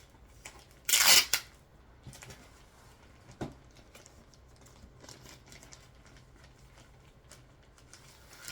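Packing tape or plastic packaging ripped off once about a second in, a short loud tear, followed by faint rustling and handling of the package with a small click a couple of seconds later.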